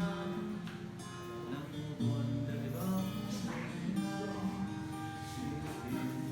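Acoustic guitar music: plucked and strummed notes of a slow tune.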